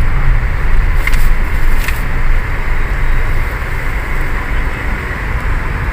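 Road and engine noise inside the cabin of a Toyota Rush SUV on the move: a steady low rumble, with a couple of light clicks about one and two seconds in.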